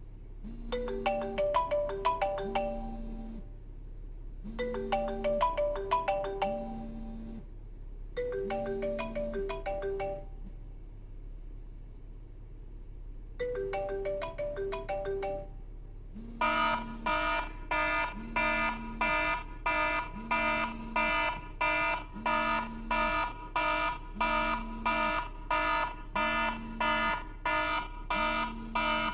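iPhone ringtones played one after another: a short melodic phrase sounds four times with pauses between, the last two shorter and quieter. Past the middle a different ringtone starts, a steady run of repeating beeping pulses at about two a second over a low tone.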